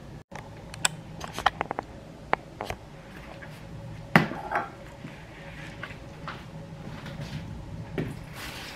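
Dishes and a bowl being handled, clinking and knocking: a quick run of light clicks about a second in, then one loud knock about four seconds in.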